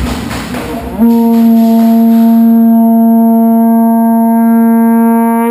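A horn sounding one long, steady, loud blast that starts abruptly about a second in, over about a second of noisy clatter before it.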